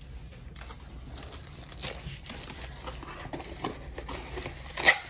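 Rustling and light clatter of paper and cardboard being handled, with scattered small clicks and one sharp knock near the end.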